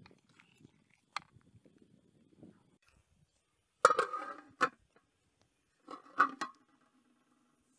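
Metal lid of a large cooking pot clattering against the pot's rim as it is lifted and put back on: a loud clatter about four seconds in with a second knock just after, then a few clinks around six seconds in, the last leaving a short low ringing hum.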